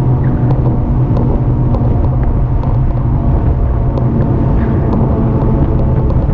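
Steady riding noise from an electric bike under way: a low rumble and hum, with faint irregular ticks.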